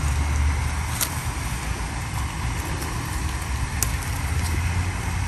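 A steady low outdoor rumble with two sharp snaps, about a second in and again just before four seconds, as sương sâm leaves are picked off the climbing vine.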